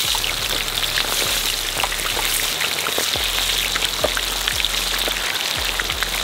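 Marinated quail pieces deep-frying in hot oil in a large iron kadai: a steady sizzle thick with small crackles and pops as more pieces are lowered in.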